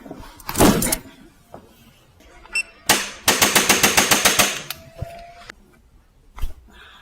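A sharp burst of hits about half a second in, then a crack near three seconds, followed by a fast, even run of about a dozen strikes, roughly eight a second, for over a second. These are percussive strikes on a patient's body during chiropractic and massage work.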